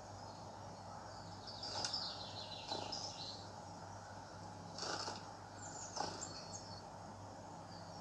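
Birdsong from a bird video playing through a tablet's small speaker: twittering chirps over a steady low hum. A few short clicks or taps come between the chirps.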